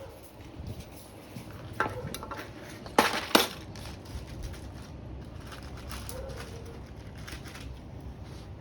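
A few sharp clicks and clinks of small hard parts being handled, the loudest two close together about three seconds in, with fainter ticks afterwards.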